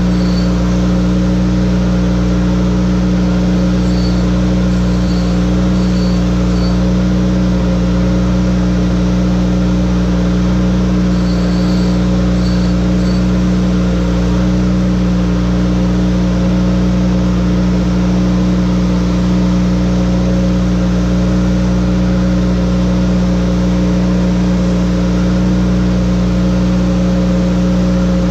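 Bench-mounted electric chain grinder's motor running with a steady drone, with a few faint high ticks in between.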